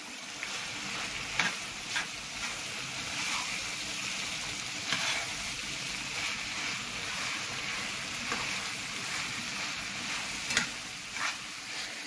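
Chicken and bell pepper strips sizzling in a frying pan as a metal spoon stirs them, with a few sharp scrapes of the spoon against the pan.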